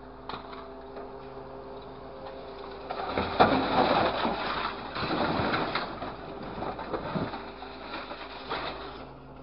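Scrap-handling grapple machine's engine and hydraulics running steadily; about three seconds in, a grapple-load of scrap metal drops into a metal bin with a loud clattering crash that goes on for several seconds in uneven bursts.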